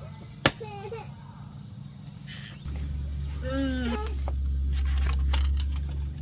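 A steady high insect drone throughout, with a sharp knock about half a second in and a baby's short babbling cries near 1 s and again near 4 s. From about three seconds in a louder low, steady rumble sets in.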